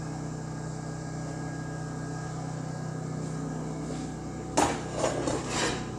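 Steady low hum of a running generator, with a quick cluster of three or four short, loud scraping knocks about four and a half seconds in.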